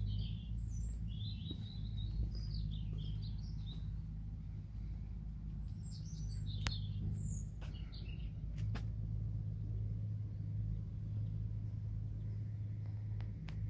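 Small songbirds chirping and twittering in short phrases, in the first few seconds and again around six to eight seconds in, over a steady low rumble.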